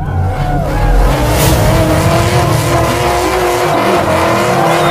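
Loud car burnout: an engine held at high revs while the tyres squeal, starting abruptly and then holding steady.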